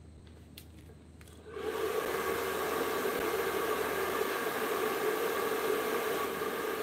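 A small electric motor, such as a workshop power tool or blower, switches on about a second and a half in and runs steadily with a hum and a hiss. A few faint clicks come before it starts.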